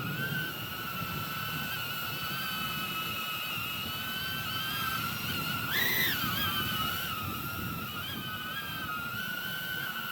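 Whine of a small quadcopter's four EMAX ECO II 2004 3000KV brushless motors in flight, the pitch wavering with throttle and rising briefly about six seconds in.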